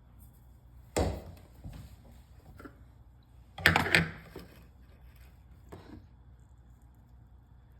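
Kitchen handling sounds: a sharp knock about a second in, a louder cluster of clattering knocks near the middle, and a few lighter knocks, as containers and utensils are set down and moved.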